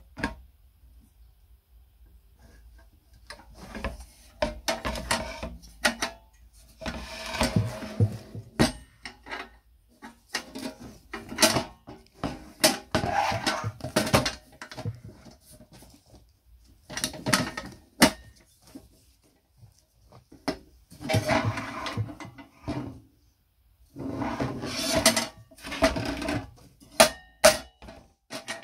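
An old metal ship's lamp being handled and turned over on a wooden table: irregular bursts of metallic clanks, knocks and rattles with short pauses between them.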